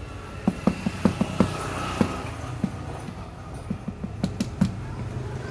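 Irregular light metallic taps and clicks, about a dozen, of hand work on the water pump's parts, over a steady low hum.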